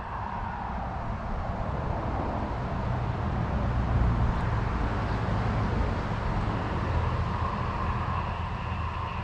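A road vehicle passing nearby: a low rumble of engine and tyres that swells to its loudest about four seconds in and then slowly fades.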